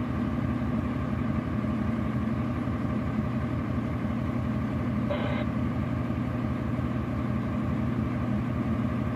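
A truck engine idling steadily, a low, even hum that does not change.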